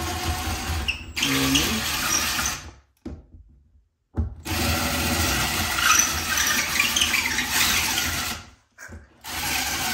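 Cordless drill boring into drywall in four runs, widening the holes for plastic wall anchors. It stops briefly three times, and the longest run is in the middle.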